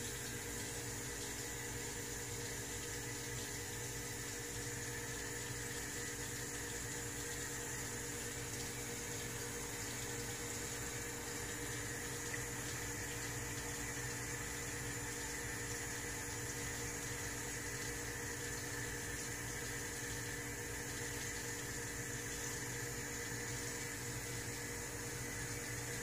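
Terrarium waterfall running: a steady trickle and splash of water with a low, steady hum under it from the circulating pump.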